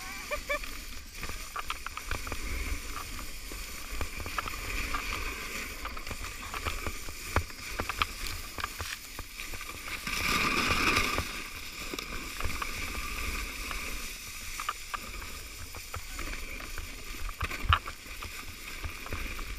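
A sledge sliding fast over snow: a steady hiss and scrape with scattered knocks from bumps, plus wind rushing over the camera's microphone. About ten seconds in there is a louder rush, as snow sprays up over the camera.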